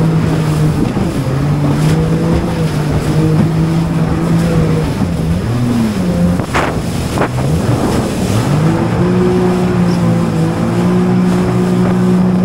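Jet ski engine running under way over a constant rush of noise. Its note dips and climbs back twice, about five and eight seconds in, then holds a little higher. Two short thuds come close together near the middle.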